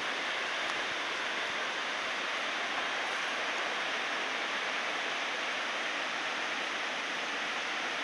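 Steady, even rush of water from Chinda Falls, a broad curtain waterfall pouring over a rock ledge into the river below.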